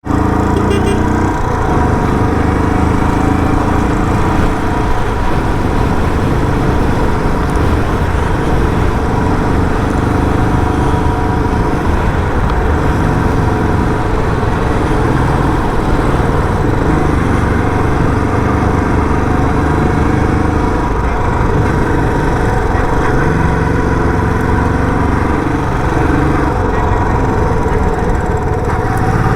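Royal Enfield Bullet 350's single-cylinder engine running through its stock silencer while riding, its pitch rising and falling as the throttle opens and closes.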